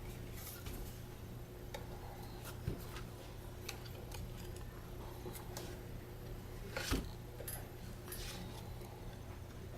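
Light clicks and taps of small tools and parts being handled during camera disassembly, with two sharper knocks, over a steady low hum.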